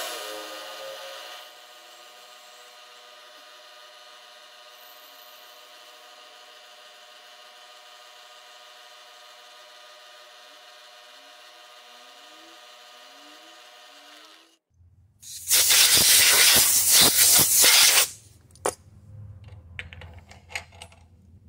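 Milling machine spindle running with the end mill cutting into the round stock, a steady hum made of many even tones that stops about fourteen seconds in. Shortly after, a loud hiss of compressed air blows the chips off the vise for about three seconds, followed by a few sharp clicks.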